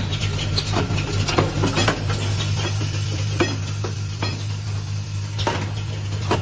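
Automated angle-valve assembly machine running: a steady low hum under irregular sharp metallic clicks and clinks as its stations handle the valve parts on the rotary table.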